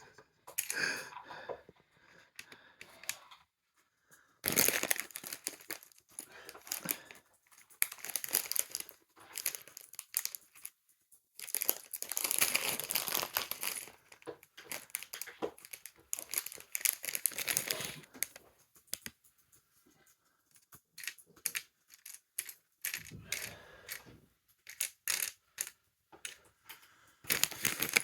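Plastic packaging being torn and crinkled in several bursts of a few seconds each, with small clicks and metallic clinks in between.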